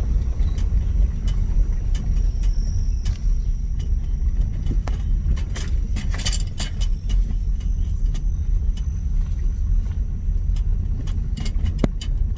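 Car driving on the road, heard from inside the cabin: a steady low rumble of road and engine noise with scattered small clicks and rattles.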